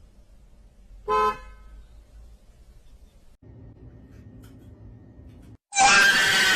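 A cat making strange vocal sounds: a short pitched call about a second in, then a louder, harsh, raspy call lasting about a second near the end.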